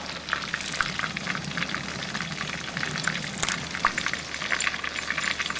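Hot oil in a camp oven sizzling and crackling steadily as a batch of crumbed prawns deep-fries, with a dense patter of small pops.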